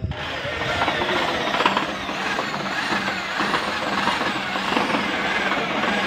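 Cordless drill running while driving screws through the door closer's mounting bracket into the aluminium door frame. The motor runs steadily, its pitch rising and falling about once a second.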